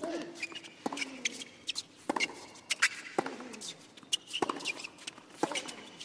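Tennis rally: rackets striking the ball six times, about once a second, alternating between the two players. Thin shoe squeaks on the hard court come between the shots.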